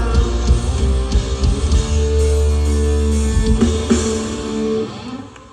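Live rock band with electric guitar and drum kit playing loud. From about two seconds in a chord is held, and near the end it dies away as the song finishes.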